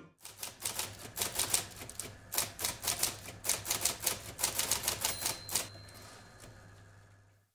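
Typewriter keystrokes in quick, uneven runs: a typing sound effect for text appearing on screen. A brief high ring comes about five seconds in, and the keystrokes thin out and fade over the last second or so.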